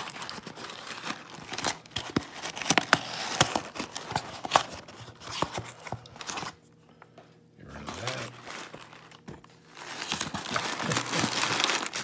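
Cardboard shipping box being torn open by hand, with a run of tape and cardboard ripping and crackling and a brief pause about halfway. Near the end, crumpled brown kraft packing paper rustles and crinkles as it is pulled at.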